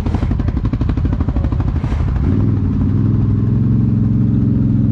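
ATV engine running at low revs with an even pulsing beat; about two seconds in the revs rise and then hold at a steady, higher hum.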